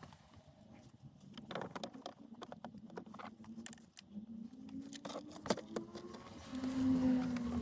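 Irregular metal clicks and clinks of a socket on an extension and universal joint being worked blindly onto a heater blower motor bolt. A low steady hum comes in near the end.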